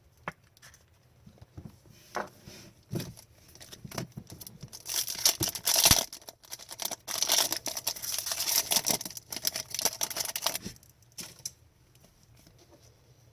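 Handling hockey trading cards: a few light taps and slides, then from about five seconds in a long stretch of crinkling and tearing, typical of a foil card pack being ripped open and its wrapper crumpled.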